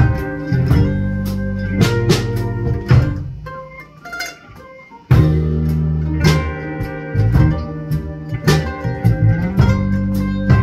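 Live band playing: electric bass and electric guitar over drums. The band drops to a quieter passage about three seconds in, then comes back in together at full volume about two seconds later.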